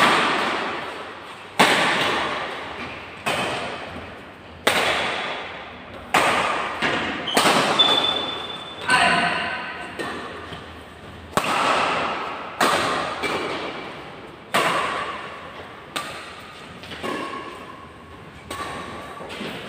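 Badminton rackets striking a shuttlecock back and forth in a doubles rally: sharp hits about every second or so, each ringing out in the hall's long echo. A brief high squeak comes about eight seconds in.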